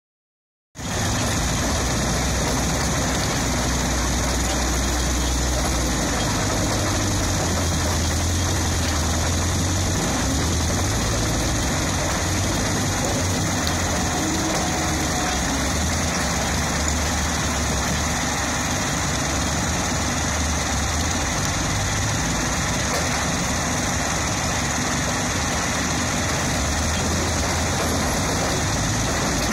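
Steady din of a working construction-rubble crushing and screening line, starting about a second in. A RubbleMaster RM 100 mobile impact crusher and an excavator run at a low diesel hum, while crushed rubble pours over a vibrating recycling screen.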